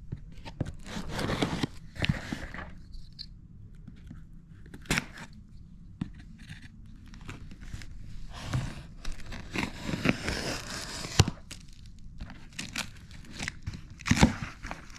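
A cardboard shipping box being opened by hand: packing tape tearing, with irregular crinkling and rustling of the packaging and a few sharp knocks and clicks.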